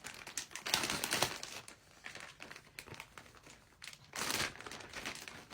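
Packaging crinkling and rustling as a gift parcel is opened by hand, with two louder bursts of crinkling, one about a second in and another about four seconds in.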